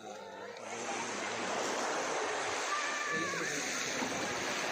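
Steady rushing noise of moving water, like surf or splashing, rising in under a second and then holding level.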